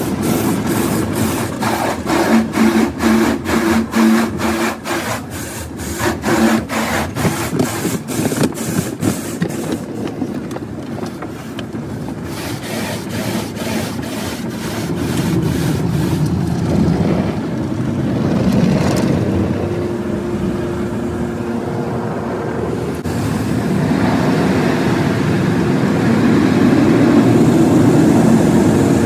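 Automatic tunnel car wash heard from inside the car: cloth brush strips slap the body and glass in a rapid, regular beat over water spray. After about sixteen seconds this gives way to a steady rushing noise with a hum that grows louder toward the end, as the car nears the drying stage.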